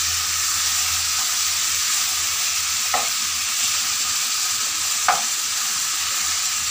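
Pangas fish pieces frying and sizzling in spiced oil in a non-stick frying pan while being stirred with a spatula. The sizzle is steady, with two brief knocks of the spatula against the pan about three and five seconds in.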